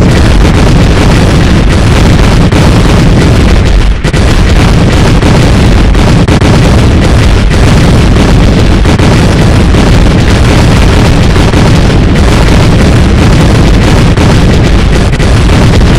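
Bomb and rocket explosion sound effect: a continuous, heavily distorted blast of explosion noise at full loudness, deepest in the low rumble, with a brief drop about four seconds in.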